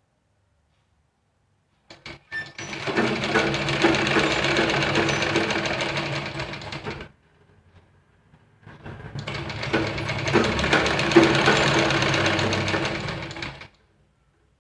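Sewing machine stitching a piping strip onto fabric in two steady runs of about five seconds each, with a short pause between them; a few clicks just before the first run starts.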